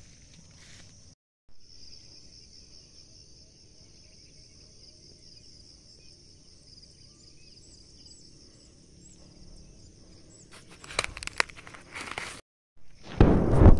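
Steady high-pitched drone of insects, with a few faint chirps over it about halfway through. Near the end, loud rustling and crackling of dry corn husks and leaves handled and brushed close to the microphone.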